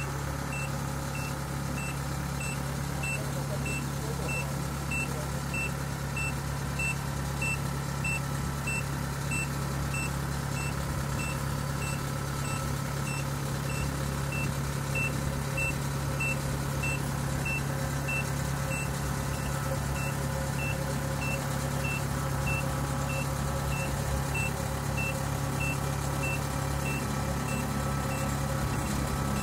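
Kubota DC68G Harvest King combine harvester's diesel engine running steadily, with its travel alarm beeping about twice a second.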